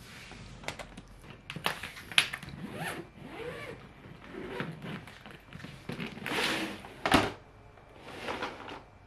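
Zipper of a hard-shell suitcase being pulled open in several rasping strokes, each rising and falling in pitch. A few sharp clicks and knocks come between the strokes, the loudest about seven seconds in.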